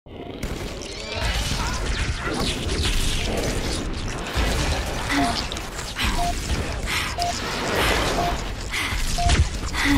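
Sound-effects track for a stop-motion battle scene: a dense rumbling, clattering noise bed that starts suddenly, joined about halfway through by a short electronic beep repeating about once a second.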